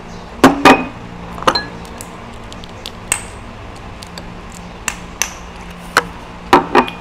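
Metal spoon clinking against small ceramic dipping bowls and a plate: about nine sharp, irregular taps, some with a brief ring, over a low steady hum.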